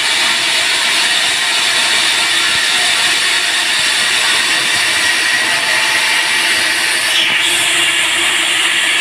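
Sawmill band saw running with a steady, loud rushing noise; the sound shifts slightly about seven seconds in.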